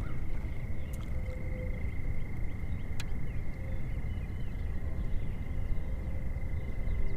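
Outdoor ambience: a steady low wind rumble with a thin, steady high-pitched whine, and two faint clicks about a second and three seconds in.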